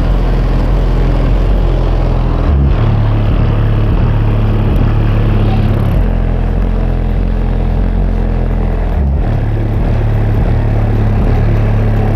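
Deep, loud bass from four SA-18 subwoofers in a 1999 Chevy Suburban, heard from outside the vehicle. Low sustained bass notes change pitch every few seconds.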